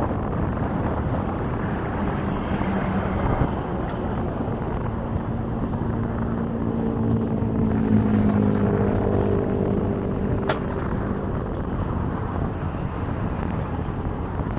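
Wind rumbling on the microphone while an engine drones past, growing to its loudest about eight seconds in and fading away; a single sharp click about ten and a half seconds in.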